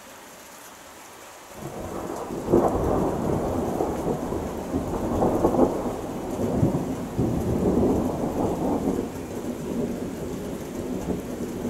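Thunder over steady rain: a deep rumble breaks in about one and a half seconds in, cracks loudly a second later, and rolls on in waves to the end, with further loud peaks along the way.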